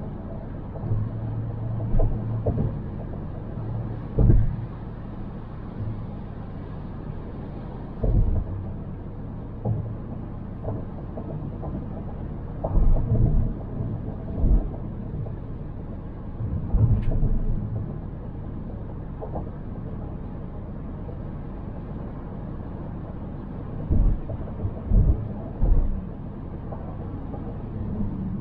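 A car driving, with a steady low rumble of road noise. Irregular dull thumps come through it, the loudest about four seconds in, around eight and thirteen seconds in, and several close together near the end, as the car goes over bumps and joints in the road.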